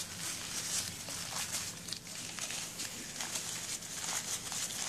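Paper towel rustling and crinkling as it is rolled up by hand on a wooden tabletop, in soft, irregular scratchy strokes.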